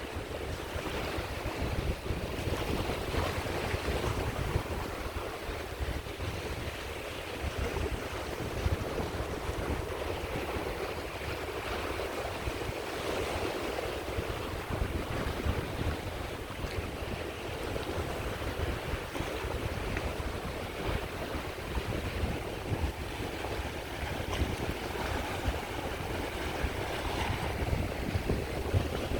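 Sea waves breaking and washing on the Caspian Sea shore, a continuous surf that swells and eases every few seconds, with a low wind rumble on the microphone underneath.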